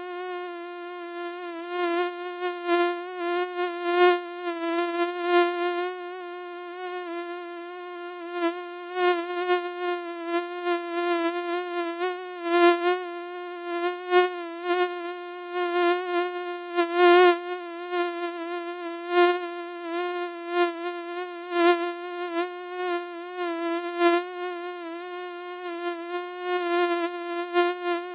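Mosquito wingbeat whine: a steady high-pitched buzz that wavers slightly in pitch and swells and fades in loudness as the insect flies about.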